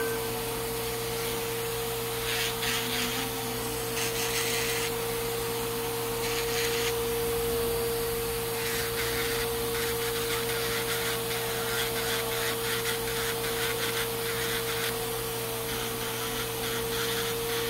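Electric nail drill running with a steady whine, its ball bur grinding down a thick, fungus-infected toenail in repeated short bouts of gritty scraping.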